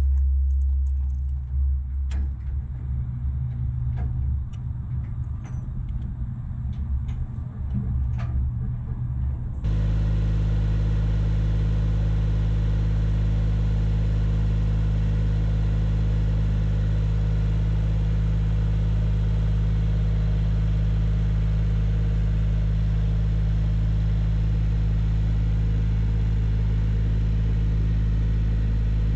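Motor vehicle running, heard as a low rumble: rough, with scattered knocks and rattles for the first ten seconds, then, after a sudden cut, a steady, unchanging drone.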